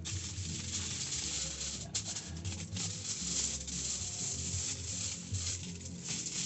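Aluminium foil being crumpled and folded by hand: a continuous crackling rustle with sharp crinkles, over background music.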